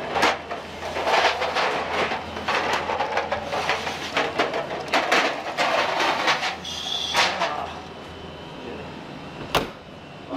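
Stainless steel sheet pans of eggs clattering and scraping as they slide into the rack of a combi oven, in a run of sharp metal knocks. Near the end the oven door shuts with one sharp knock.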